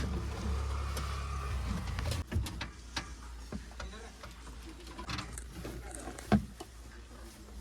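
Diesel engine running with a steady low hum that drops away after about two seconds, followed by scattered knocks and clanks, one sharper than the rest near the end.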